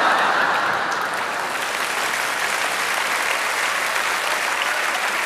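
Audience applause: a steady wash of many hands clapping, at its fullest right at the start and then holding even.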